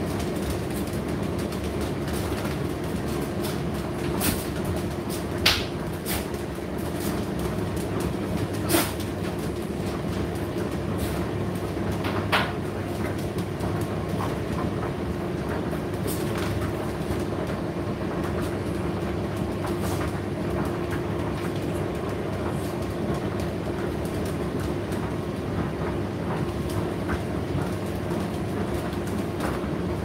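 Indesit IDC8T3 condenser tumble dryer running mid-cycle: a steady motor and fan hum with the drum turning, and scattered clicks and knocks, the loudest about five, nine and twelve seconds in.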